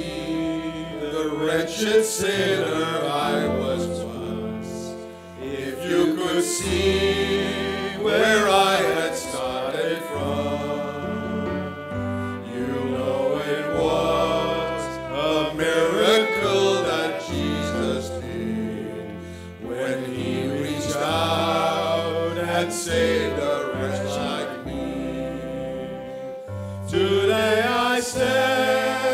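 A group of men singing a slow gospel song together, line by line, with short breaks between phrases.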